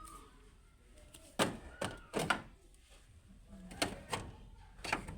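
A series of about six sharp knocks and thuds, unevenly spaced.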